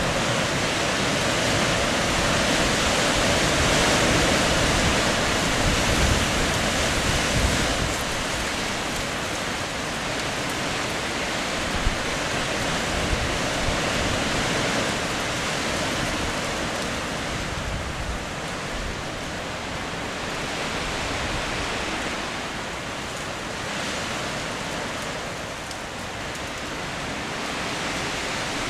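Wind: a steady rushing hiss with irregular low rumbling buffets on the microphone, strongest in the first several seconds.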